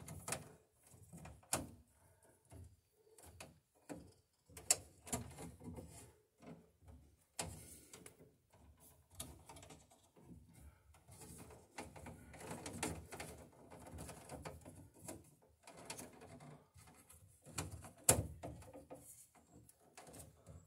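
Irregular rustling and scraping of a stiff insulated wire being bent and pushed into place inside a steel breaker panel, with several sharp clicks and taps as it knocks against the metal box.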